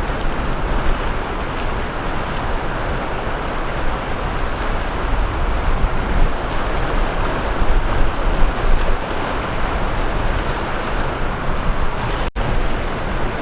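Sea waves breaking and washing on a beach shore: a steady wash of surf over a low rumble. The sound cuts out for an instant near the end.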